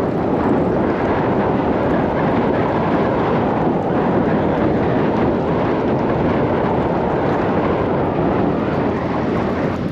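Strong wind buffeting the microphone: a steady, dense rushing rumble with no breaks.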